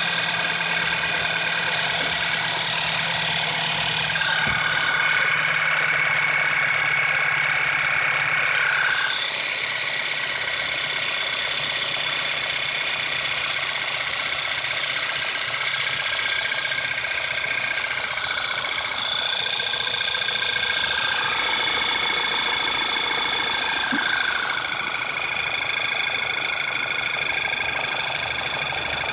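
VW Passat 2.0 TSI four-cylinder engine idling, with a steady fast ticking running through it. The owner rules out the tensioner, water pump and oil pump and suspects the cam follower.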